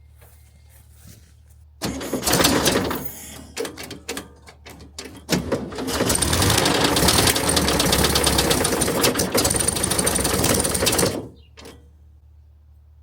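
1971 VW bus 1600 single-port air-cooled flat-four being started: stuttering bursts about two seconds in, then running roughly with a rattling, knocking noise for about five seconds before cutting off. The engine sounds awful, and the owner suspects the cooling fan, which spins as if bent, perhaps from being fitted too tight.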